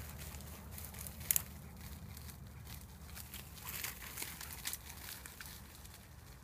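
Dry cut-cereal stubble crackling and crunching underfoot in scattered sharp crackles, with a cluster about four seconds in, over a low steady rumble.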